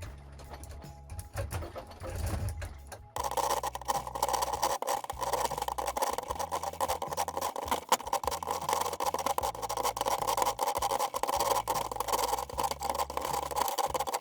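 A chainsaw that goes suddenly to a loud, steady full-throttle run about three seconds in, over background music.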